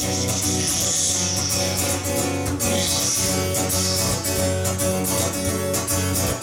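Acoustic guitar strummed in a steady rhythm: an instrumental passage of a song, with no singing.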